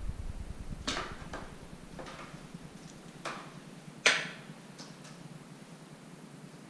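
A handful of short, light swishes and taps, the loudest about four seconds in, over quiet room tone.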